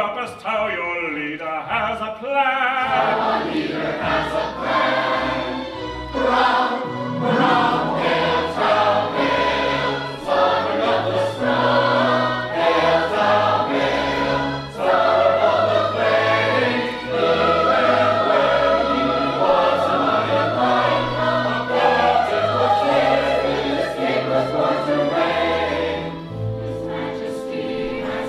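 Opera chorus singing together over instrumental accompaniment, with a bass line stepping from note to note underneath. It grows softer near the end.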